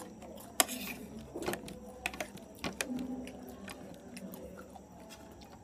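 Light, irregular clicks and taps of cutlery and dishes during a meal, the sharpest about half a second in.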